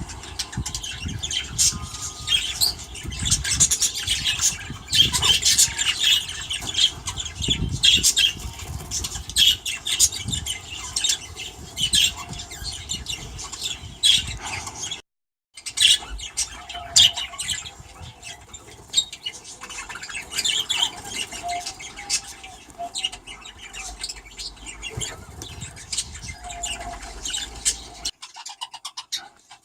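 A flock of budgerigars in an aviary chattering with many short chirps and squawks. The sound breaks off for a moment about halfway.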